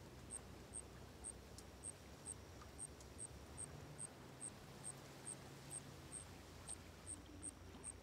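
Faint insect chirping: a short, high chirp repeating evenly about two and a half times a second, over a low steady rumble.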